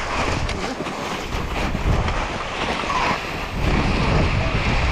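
Wind buffeting a GoPro action camera's microphone with a low rumble, mixed with the rushing, crunching noise of riders running through wet, slushy snow to their mountain bikes. The low rumble eases briefly about a second in.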